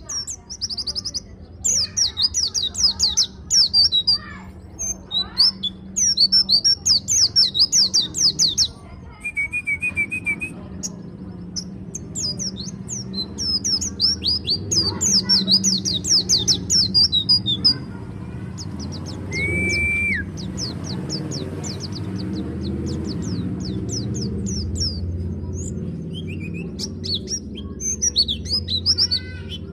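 A pleci (white-eye, Zosterops) singing: long runs of rapid, high chirping notes strung together with short pauses, in the continuous rolling style that keepers call 'ngeroll'. A steady low hum runs underneath.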